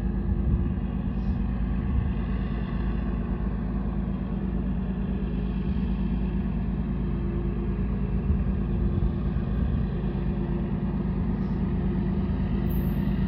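GE Evolution Series diesel-electric locomotives working hard under load, pulling a loaded coal train up a steep grade, give a steady low drone.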